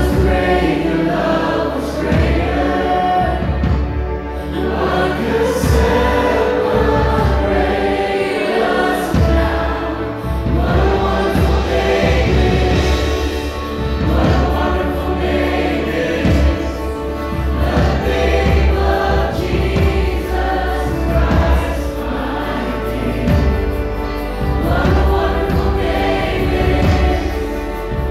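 Live worship band and singers performing a Christian worship song, with sustained group vocals over a drum kit marking the beat with drum and cymbal hits.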